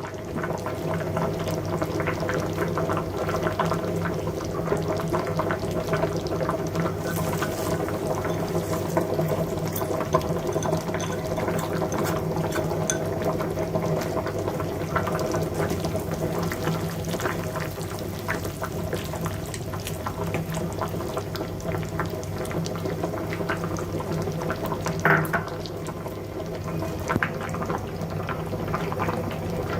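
Liquid bubbling in a cooking pot: a steady simmer of many small pops and bubbles over a low steady hum, with one louder pop about 25 seconds in.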